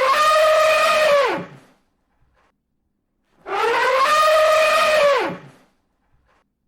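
Elephant trumpeting: two identical pitched calls about four seconds apart. Each rises a little, holds, then drops sharply in pitch at its end, with silence between calls.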